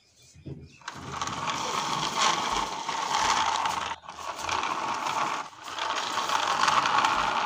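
Plastic toy dump truck pushed by hand along rough concrete, its plastic wheels rolling and rattling with a continuous grinding, ratchet-like sound. It starts about a second in and breaks off briefly twice as the truck stops and is pushed on.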